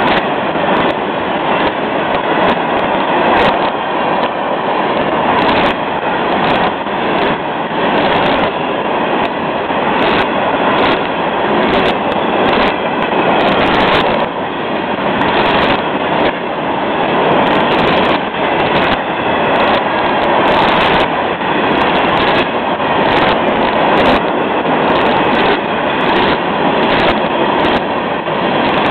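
Florida East Coast Railway freight train's open-top hopper cars rolling past steadily, loud wheel-and-rail rumble with repeated clacks of wheels over rail joints.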